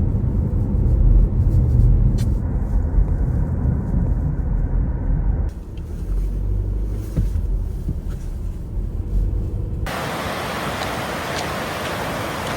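Car road noise heard from inside the moving car: a loud, uneven low rumble of tyres and engine. About ten seconds in it cuts to a steady, even rushing noise.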